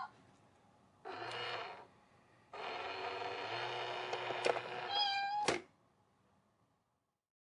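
Cat coin bank toy going off: its mechanism hums as the lid lifts and the mechanical cat pops out, over the toy's recorded meowing, in a short bout about a second in and a longer one from about two and a half seconds, ending with a sharp click.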